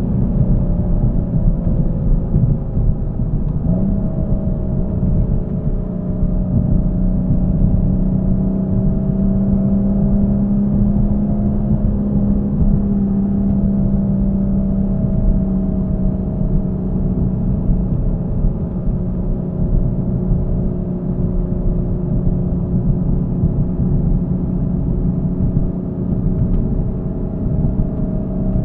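2016 BMW M235i's 3.0-litre inline-six with the M Performance Exhaust, cruising at a fairly steady speed, heard inside the cabin. It is a steady engine-and-exhaust drone whose pitch drifts only slightly, over a low road rumble.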